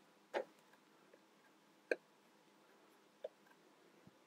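Plastic toy construction pieces clicking faintly as beams are slotted into column tops: three short separate clicks about a second and a half apart, then a soft low knock near the end.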